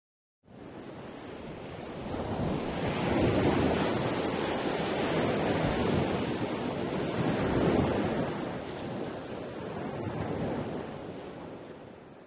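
Sea surf on a beach, its noise swelling and ebbing in slow waves, fading out near the end.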